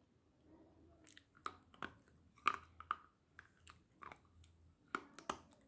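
Black slate pencil being bitten and chewed right at the microphone: a run of sharp, irregular crunches starting about a second in, loudest about two and a half seconds in and again near the end.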